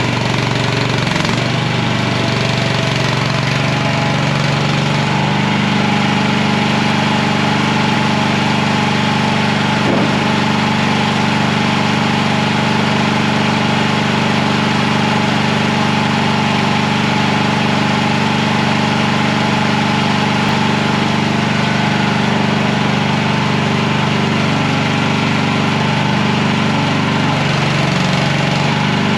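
Mini skid steer's engine running steadily. Its pitch shifts a little about five seconds in, then holds.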